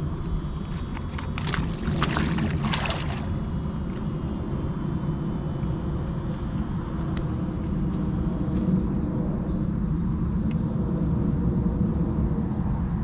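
A steady low mechanical rumble and hum throughout, with a burst of water splashing about 1.5 to 3 seconds in as a person wades in shallow water.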